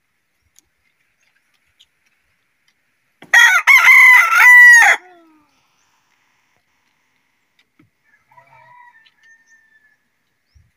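A rooster crows once, loud and close, about three seconds in. The crow lasts under two seconds. A much fainter call follows about eight seconds in.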